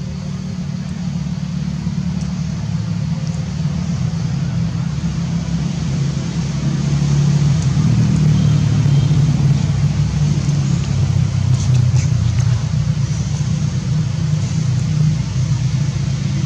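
A steady low rumble, like an engine running or wind buffeting the microphone, growing louder about seven seconds in.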